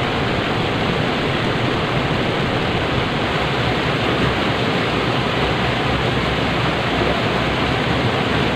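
Loud, steady rush of turbulent white water in a river.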